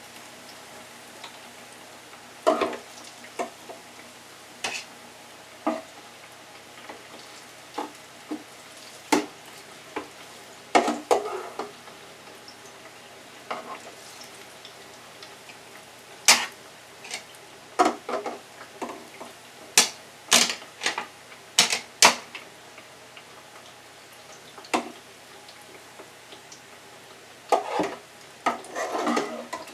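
Hot oil sizzling steadily in a deep fryer, with scattered clinks and knocks of utensils against dishes and the fryer. The clinks are thickest a little past the middle.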